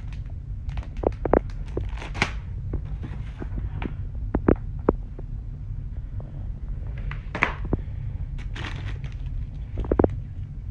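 Cellophane-wrapped packages and a cardboard sign being handled: plastic crinkling with scattered taps and knocks, over a steady low hum.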